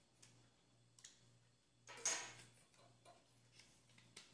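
Light handling clicks from a small screwdriver working on the plastic canopy of an RC helicopter, with one louder brief clatter about two seconds in.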